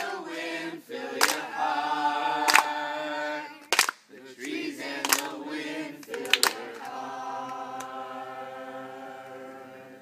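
A group of teenage boys singing a song together, with hand claps about every second and a quarter, then ending on a long held chord that fades away over the last few seconds.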